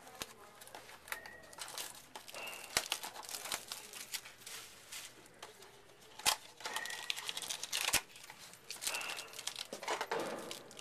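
Trading-card mini box being opened by hand: crinkling and tearing of the wrapper, with a few sharp clicks and taps of cardboard.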